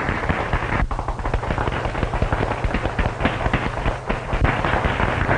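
Audience applauding: a dense, steady crackle of clapping.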